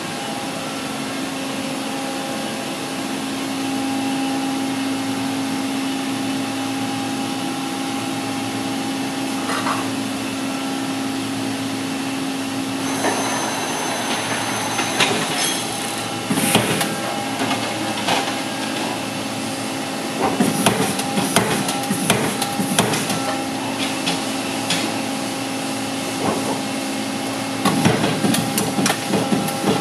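Amada Vipros 357 Queen CNC turret punch press running: a steady machine hum, then, from a little under halfway in, clattering and quick runs of sharp punching strokes, thickest past the middle and again near the end.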